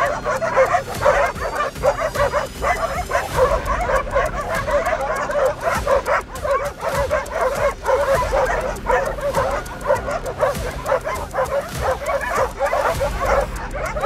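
A pack of large stray dogs barking and yelping without a break, several at once and overlapping, in territorial barking at a stranger who has come into the street they guard.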